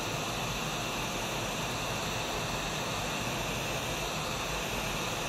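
Hot air rework station nozzle blowing a steady rushing hiss with a faint high whine, heating solder balls through a BGA reballing stencil to reflow them onto the chip.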